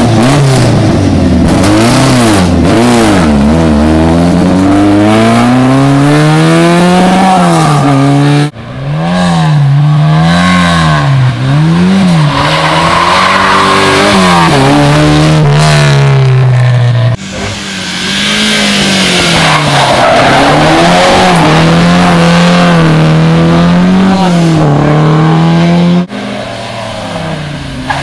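Historic rally cars driven flat out on a closed special stage, engines revving hard and dropping again over and over through the gear changes and corners. The sound cuts abruptly from one car to the next three times.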